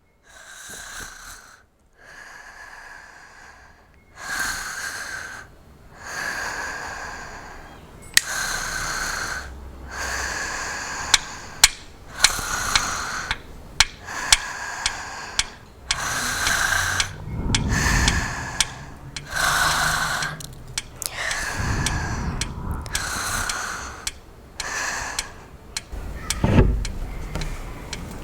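Slow, heavy human breathing, a long series of noisy in-and-out breaths about one every two seconds, performed as Foley. Sharp clicks fall among the breaths, and a few low thumps come in the second half.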